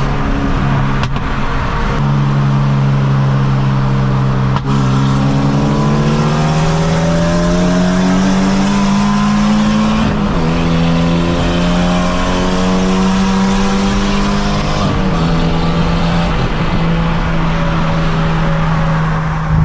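Infiniti G37's 3.7-litre V6 pulling hard under full throttle, heard inside the cabin. Its note climbs in pitch for several seconds and drops back twice.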